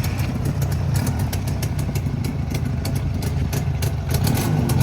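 Motorcycle engine running steadily, with a rattly clicking over the hum, getting louder near the end as the bike comes closer or revs up.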